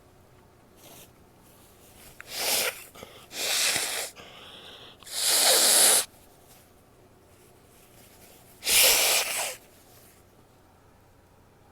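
A woman sneezing: four loud sneezes, the longest and loudest about five seconds in, with quieter breathing between them.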